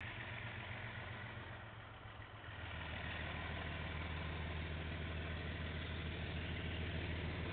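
Large engine running with a low, steady hum that grows louder and fuller about two and a half seconds in.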